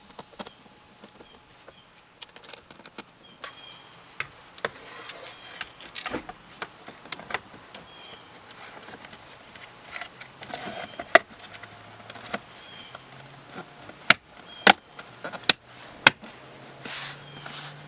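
Scattered clicks, taps and knocks of car interior trim and screws being handled and refitted around the shifter, with a few sharper clicks in the last few seconds and a faint low hum in the second half.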